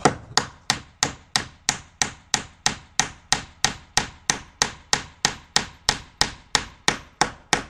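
Hammer steadily driving a wooden dowel into a timber beam: about three even, sharp blows a second.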